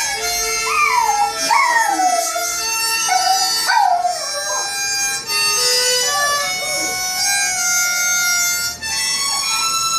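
A harmonica blown in held, tuneless chords with no rhythm, and a small dog howling along to it in several wavering calls that slide down in pitch. The dog is responding to the harmonica.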